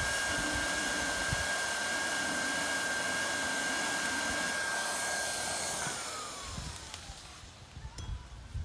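Hot-air gun blowing steadily with a high fan whine, heating a glued PVC fitting to soften it. A little under six seconds in it is switched off and the whine falls away as the fan spins down, followed by a few faint knocks.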